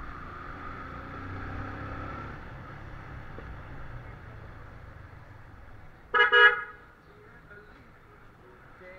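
Motorcycle running at low speed, with steady engine and road noise, then a vehicle horn sounds loudly in two quick toots about six seconds in.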